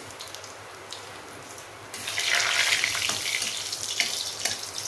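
Hot oil sizzling in an aluminium wok, starting suddenly about two seconds in and staying loud, with a spatula stirring and clicking against the pan.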